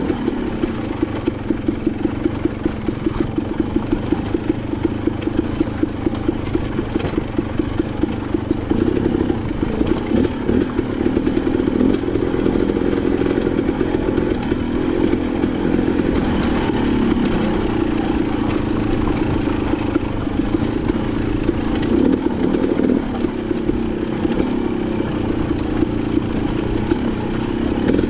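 Dirt bike engine running steadily at low to moderate revs, with a fast even pulsing note, as the bike is ridden along a singletrack trail.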